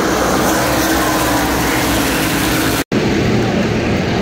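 A pack of NASCAR Truck Series trucks racing together, their V8 engines making a loud, continuous mass of engine noise. The sound cuts out for an instant about three seconds in.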